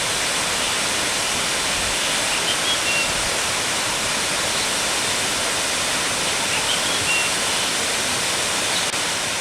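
Cheonjeyeon Waterfall's second cascade pouring into its pool: a steady, dense rush of falling water.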